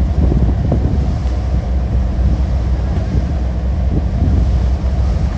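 Wind buffeting the microphone over the steady low rumble of a fishing boat running at sea, with the rush of its wake.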